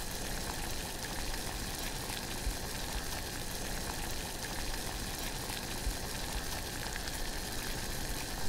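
A steady hiss with a few faint clicks.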